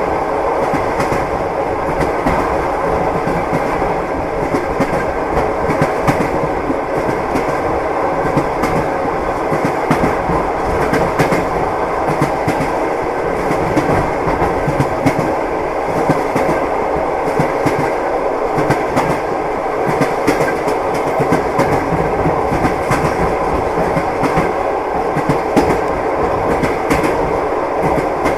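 Train wheels clacking over the rail joints with a continuous rolling rumble, as a moving train carriage is heard.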